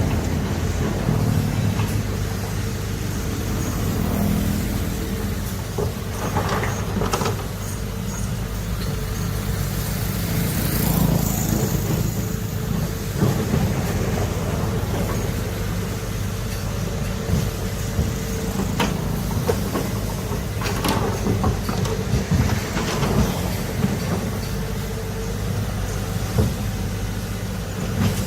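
Heavy diesel excavator running steadily at work, with a deep engine drone and occasional brief metallic clanks from the machine as it digs.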